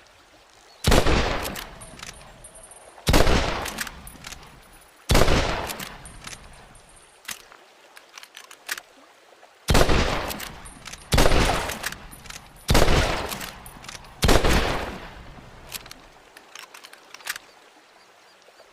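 Springfield rifle firing seven single shots, each sharp report trailing off over about a second. The shots come about two seconds apart in a group of three, then about a second and a half apart in a group of four, with small clicks between the two groups.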